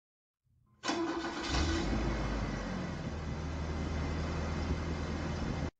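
Pickup truck's engine being started: a short starter whine about a second in, then the engine catches and runs at a steady idle, still short of operating temperature.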